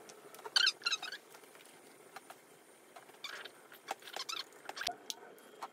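Small plastic jar and cap being handled with rubber gloves: light clicks and short squeaky scrapes in a few brief clusters as the screw-top is opened and the jar is worked.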